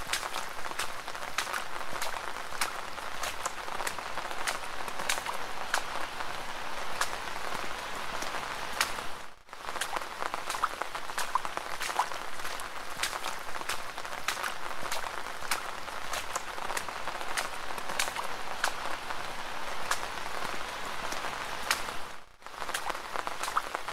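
Steady rain with many separate drops ticking close by. The sound dips briefly twice, about nine and twenty-two seconds in.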